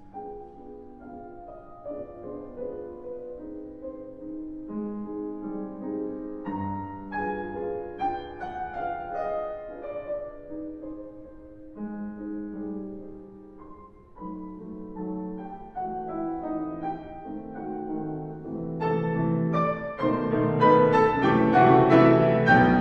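Background piano music in a slow classical style, notes held and changing every second or two, growing louder and fuller over the last few seconds.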